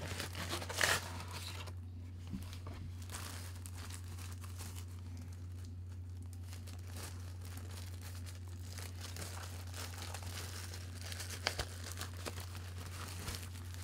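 Packaging being crinkled and torn open by hand, in soft scattered rustles with a few sharper crackles, over a steady low hum.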